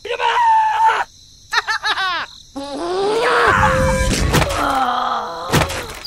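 Cartoon character sound effects: squeaky, pitch-bent gibberish voice calls and a groan. About halfway through there is a crash of thuds, and another sharp thump comes near the end.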